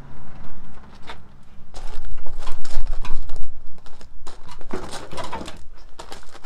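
Rusty steel front-end body panels of a classic Mini clanking and scraping as they are lifted, shifted and set down. There is a run of knocks and rattles, loudest about two to three seconds in.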